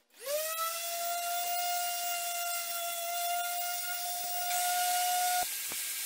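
Electric orbital sander spinning up to a steady high whine, used to finish-sand the wooden workbench top; the whine cuts off suddenly about five seconds in.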